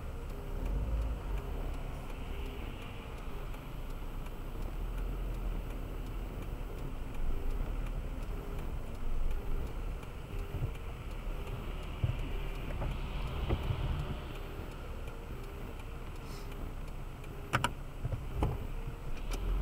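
Car driving on a highway: steady engine and road rumble, with two sharp clicks near the end.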